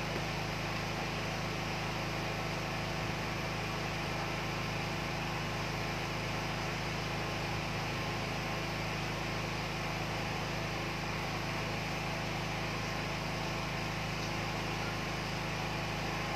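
Steady background hum and hiss that does not change, with faint steady tones in it.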